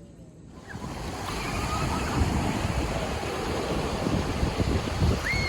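Wind buffeting the microphone over the wash of ocean surf, starting suddenly about half a second in. A bird calls faintly a few times, the clearest call near the end, a short rising-then-falling note.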